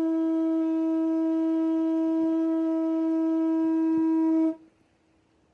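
A conch shell trumpet (Hawaiian pū) blown in one long, steady note that stops about four and a half seconds in.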